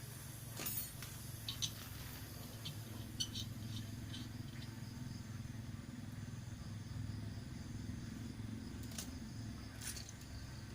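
Refrigerator compressor running with a steady low hum while being charged with LPG as refrigerant, with a few light metallic clicks and clinks about a second in and again near the end.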